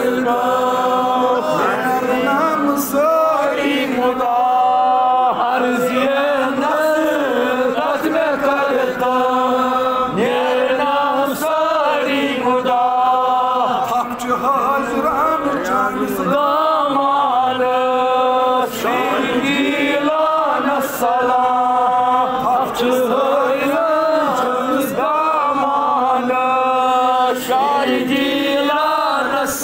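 A man leading devotional chanting in long, held sung phrases, with other men's voices joining in. A steady low note is held beneath the melody.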